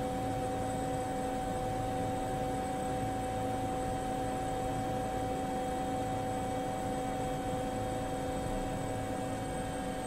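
Steady hiss with a constant hum at a few fixed pitches, unchanging throughout; no rising or falling engine note is heard.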